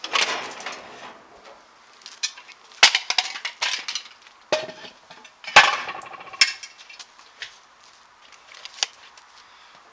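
Metal parts clanking and knocking as they are handled and set down, a string of separate hits with short ringing, loudest about three and five and a half seconds in, then a few lighter taps near the end.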